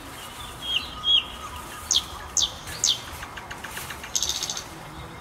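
Wild birds calling: a couple of short chirps, then three sharp downward-sliding notes about half a second apart, and a quick high trill near the end.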